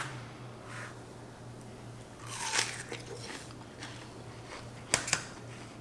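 Someone biting into a slice of fresh watermelon with a wet crunch about halfway through, then chewing. Two sharp clicks come near the end.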